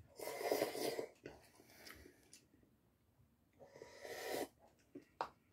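A person slurping hot instant udon cup noodles: a loud slurp of noodles off a fork lasting about a second, then a second slurp about four seconds in as broth is sipped straight from the paper cup. A short click follows near the end.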